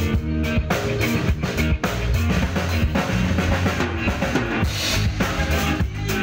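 A band playing live: a drum kit keeps a steady beat with bass drum and snare, under sustained pitched notes and a low bass line from the other instruments.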